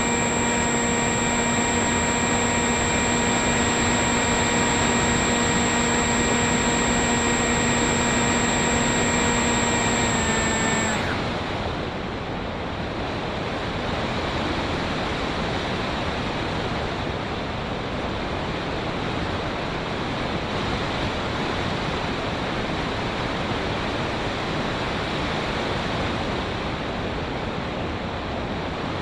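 The Bixler v1.1's 2216 2000kv brushless motor and 6x4.5 prop run with a steady whine over the rush of wind. About eleven seconds in the whine sags slightly and cuts off as the throttle is closed, leaving only the rush of air over the microphone while the plane glides.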